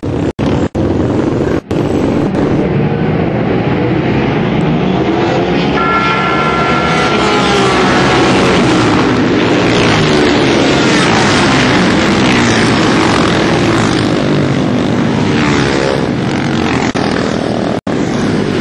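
A pack of single-cylinder Supermono racing motorcycles accelerating hard off the start and passing at high revs, several engine notes rising and falling over one another. The sound drops out briefly a few times near the start and once near the end.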